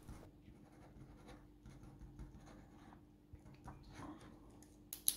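Pen writing on paper, faint scratching strokes, with one sharp click shortly before the end.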